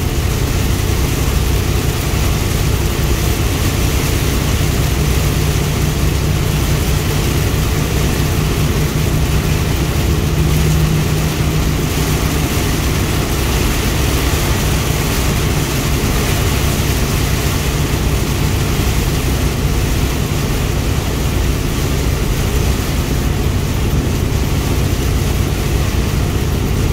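Steady drone of a car driving at highway speed in a heavy downpour, heard inside the cabin: low road and engine rumble under a constant hiss of rain on the car.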